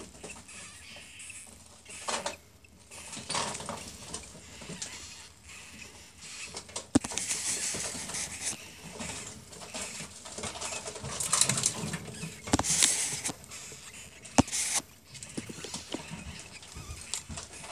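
Newborn ferret kits squeaking faintly as they wriggle in straw bedding, over irregular rustling of the straw. Two sharp clicks cut through, about halfway and near the end.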